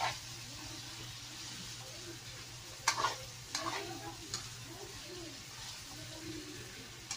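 Chicken, potatoes and carrots sizzling in oil in a wok while a metal spatula stirs them, the spatula clinking and scraping against the pan a few times, loudest about three seconds in.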